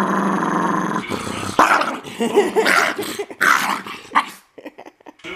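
Small dog growling at a hand reaching toward it: a steady, continuous growl, then from about a second and a half in a few loud snarling barks as it snaps at the hand.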